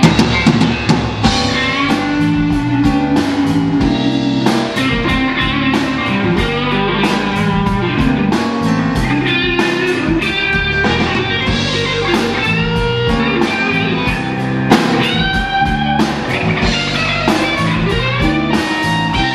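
Live blues band: a Stratocaster-style electric guitar plays a lead line with bent notes over bass and drum kit.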